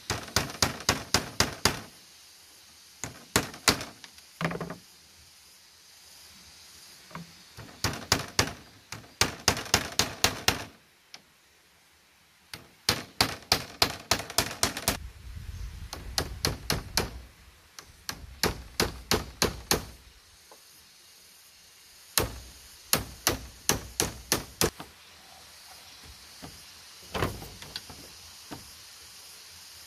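Hammer striking a bamboo strip on a woven split-bamboo panel: quick runs of sharp knocks, about five or six a second, in bursts with short pauses between them.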